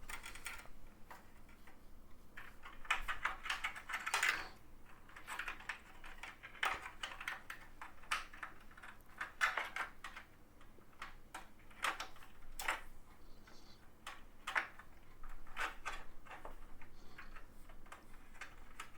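Irregular clicks, scrapes and light rattles of hands handling PC parts: a 2.5-inch SSD being pulled out of its mounting bracket and a SATA power connector pushed onto it.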